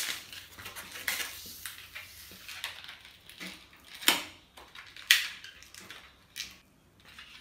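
A partly inflated black latex twisting balloon being squeezed and twisted by hand, giving a scattered series of short rubbery squeaks and snaps. The loudest comes about four seconds in, with another about a second later.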